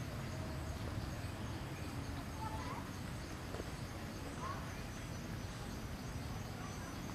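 Outdoor ambience: a steady low rumble with faint, short, high chirping calls every couple of seconds.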